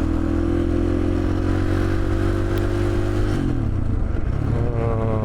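KTM 500 EXC single-cylinder four-stroke engine running steadily, its note dropping lower about three seconds in.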